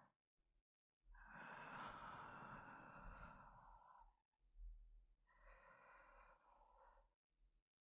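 A man's slow, heavy breathing, like someone half-asleep: one long breath of about three seconds, then a shorter one.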